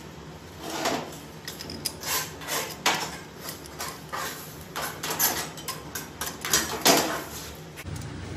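Irregular metal-on-metal clanks and clinks with a short ring, about ten over six seconds, as of steel tools and parts handled at a manual lathe, over a steady low machine hum.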